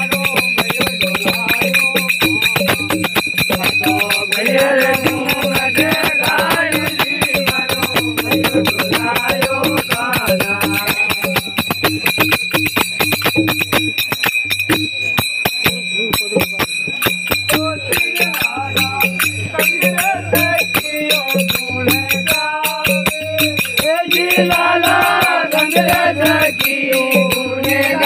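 Gavri folk music: a steady drum beat with dense jingling and rattling, a wavering sung melody, and a steady high ringing tone over it.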